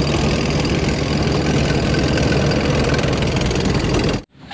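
Tank engine sound: a heavy engine running steadily at idle, which stops abruptly near the end.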